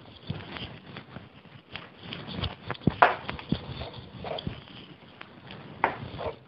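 A whiteboard eraser rubbing marker writing off a whiteboard in quick, irregular wiping strokes, with a few light knocks.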